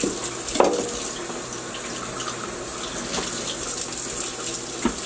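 Kitchen tap running steadily into a stainless steel sink while an artichoke is rinsed, with a short knock about half a second in and another near the end.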